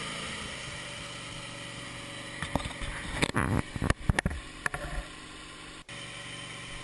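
Wood-Mizer LT15 band sawmill running steadily as it finishes a cut through an oak log, with a burst of sharp knocks and clatter in the middle.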